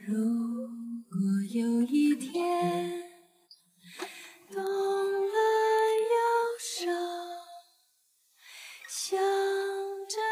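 Background music: a woman singing a Mandarin song in phrases with long held notes.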